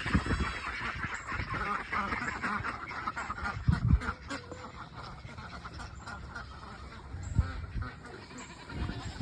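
A flock of ducks quacking loudly and continuously, with a couple of dull thumps.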